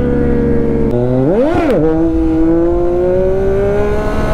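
Sport motorcycle engine running without its stock silencer. It idles, gives one quick throttle blip about a second and a half in, then runs on with the revs slowly rising.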